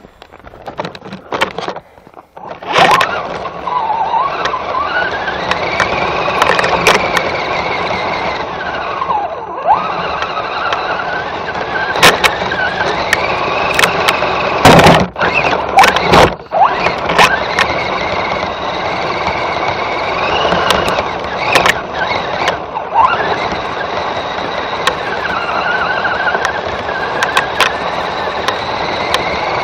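Axial SCX10 RC crawler's electric motor and gearbox whining, the pitch rising and falling with the throttle as it drives over crusty snow, heard from a camera mounted on the truck. Sharp clicks and knocks come in several times, loudest about halfway through.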